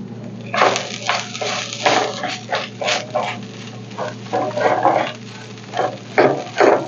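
A wooden spoon stirring and scraping rice around a nonstick frying pan in quick, irregular strokes, the rice sizzling as it is sautéed in pork fat, over a steady low hum.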